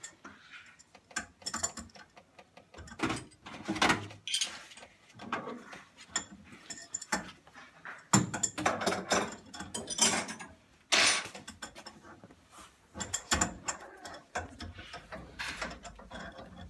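Irregular clicking, scraping and knocking of hands and tools working on plumbing fittings under a kitchen sink while a water filter is plumbed in.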